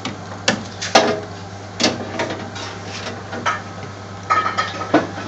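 Metal clatter of a wire deep-fryer basket, a series of sharp knocks and rattles with a few close together near the end, over a steady low hum.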